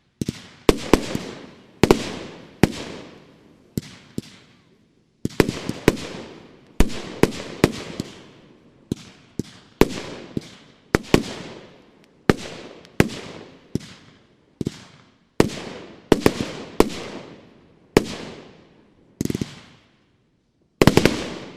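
Funke Scala 25B, a 25-shot 30 mm firework battery, firing its shots in a steady sequence: sharp bangs about one a second, each trailing off before the next, with the last one near the end.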